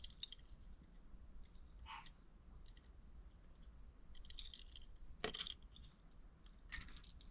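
Faint, scattered clicks and light clinks of small diecast model cars being handled, picked up and set down, about half a dozen taps spread over several seconds.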